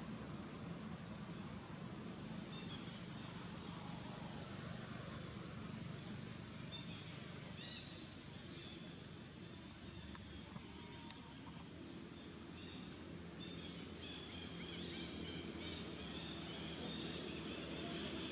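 Steady high-pitched drone of insects, with faint short chirps scattered through the middle and later part over a low background rumble.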